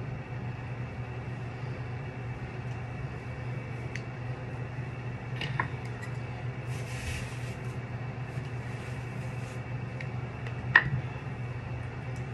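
Steady low hum with a few light clicks, the sharpest near the end, and a short hiss about seven seconds in, from hair being brushed and styled.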